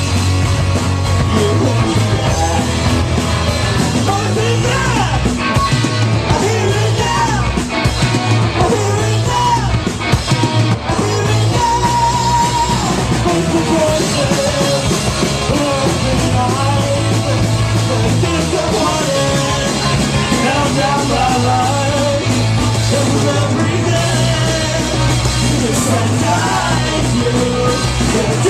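Live country-punk rock band playing loud and steady, with electric guitar and a sung, partly yelled lead vocal.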